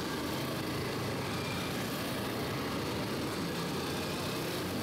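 Several small motorcycle engines running steadily at low speed, an even engine noise with no revving.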